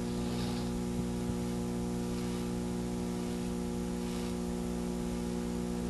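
Steady electrical mains hum with several even overtones under a light hiss: the background noise of an old broadcast recording, heard in a gap with no speech.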